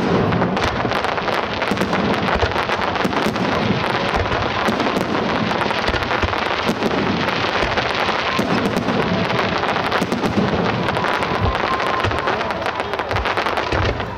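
Fireworks display: a dense, continuous crackling of many bursting shells and crackle stars, with repeated deep bangs of shells going off at irregular intervals.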